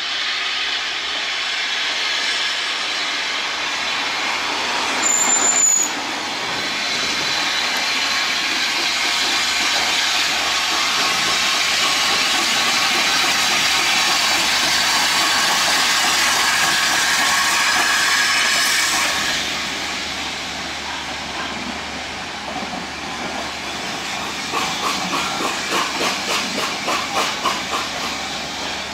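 Hunslet 0-6-0 saddle-tank steam locomotive working past with a train of coaches, a steady loud hiss of steam, with a brief high-pitched note about five seconds in. Near the end the coaches' wheels clickety-clack over the rail joints at about four beats a second.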